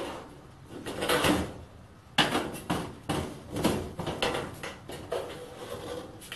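A length of angle iron being knocked and slid against the thin galvanised steel of a light shelving panel: a scrape about a second in, then a run of clunks and scraping rattles from about two seconds in.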